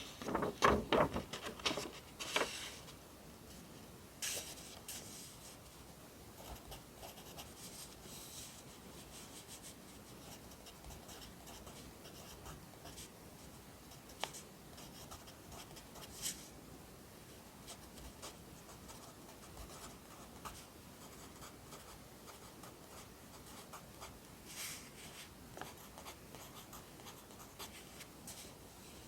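Pencil writing on paper: soft scratchy strokes, louder and denser in the first couple of seconds, then faint and steady with an occasional sharp tick of the pencil tip.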